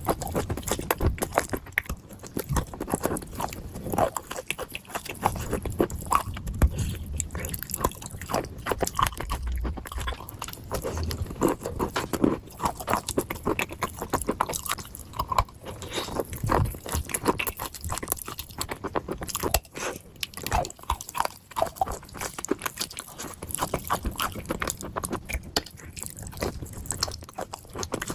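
A person biting and chewing pieces of dry clay: a dense, continuous run of sharp crunches and cracks with no pause.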